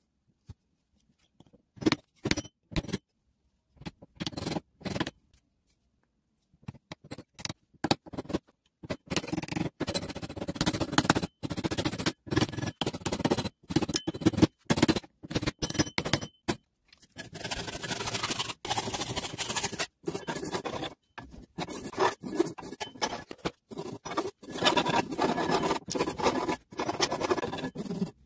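Hammer blows driving wooden wedges into the glued, slotted end of an axe handle in the axe eye: a few separate knocks, then a quick run of strikes. From about two-thirds of the way in, a hand tool scraping back and forth over the wedged end grain in rapid strokes as it is trimmed flush.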